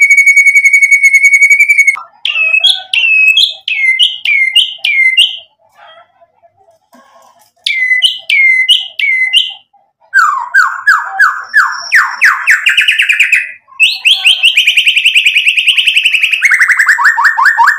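White-rumped shama singing loudly. The song opens with a fast trill held on one pitch, then runs through short series of sharp, falling whistled notes with a pause between them. It ends in long rapid trills that climb in pitch and then drop lower near the end.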